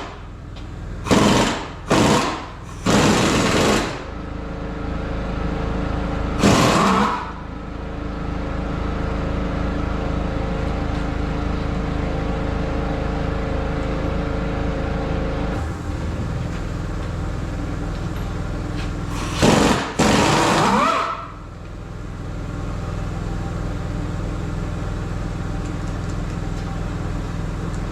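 Pneumatic impact wrench rattling in several short bursts (three close together at the start, one about six seconds in, one about twenty seconds in ending in a rising whine), over a steady machine hum.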